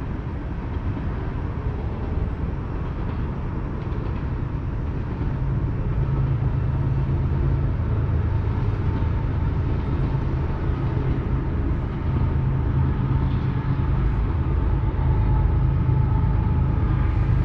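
BNSF manifest freight train passing, a steady low rumble from the train with a low hum that comes up about five seconds in and grows louder toward the end.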